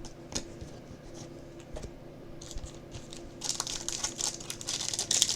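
Trading cards handled with light clicks and taps, then, from about three and a half seconds in, the crinkle of a plastic card-pack wrapper being torn open and handled, getting louder toward the end.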